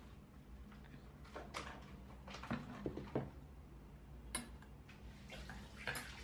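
Stainless steel fork and spoon clinking against wooden plates as the dishes are gathered and stacked, a scattered series of light clinks and knocks, the sharpest just past three seconds in.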